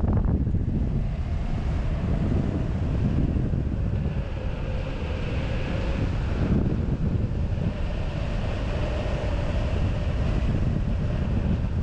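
Air rushing past a hang glider's wing-mounted camera in flight: steady wind noise buffeting the microphone, with a faint steady tone underneath.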